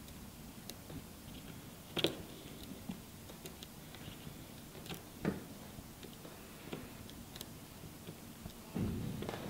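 Faint small clicks and taps of the iPhone 6 display's flex-cable connectors being pressed onto the logic board sockets, with a sharper click about two seconds in and another about five seconds in. A brief louder handling noise comes near the end.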